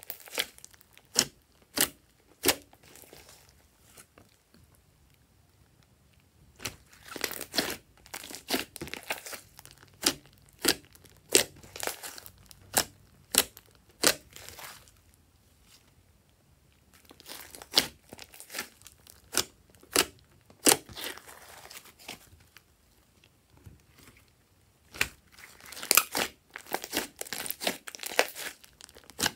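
Thick blue slime squeezed and kneaded by hands, with trapped air popping and crackling in sharp clicks. The clicks come in clusters, with a few pauses of a couple of seconds between them.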